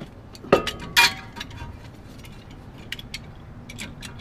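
Steel C-clamp knocking against a car's cast-metal brake caliper as it is set in place: two sharp metal clanks with a short ring, about half a second and a second in, then scattered light ticks.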